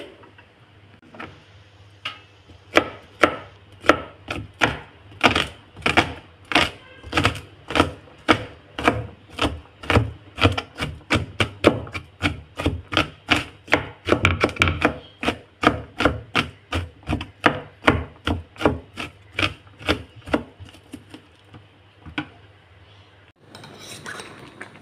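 Kitchen knife chopping garlic cloves on a plastic cutting board: a long run of quick, even knife strikes, about three a second, that stop near the end.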